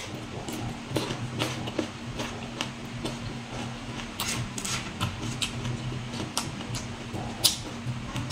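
Close-up chewing of crisp raw green fruit: irregular crunches and wet mouth clicks, with a steady low hum underneath.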